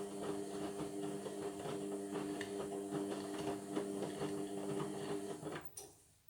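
Indesit washing machine running on a Cotton 60 cycle: its motor hums steadily with a fast, even tapping over it, then cuts off about five and a half seconds in, leaving near silence.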